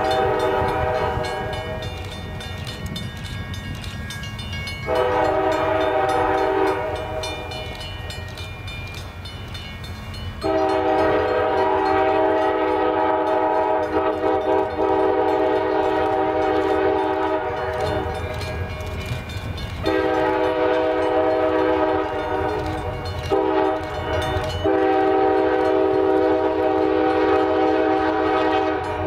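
Diesel locomotive air horn sounding a chord in a series of long blasts with gaps of a few seconds, the longest about seven seconds, as the train approaches a grade crossing. A low rumble runs underneath.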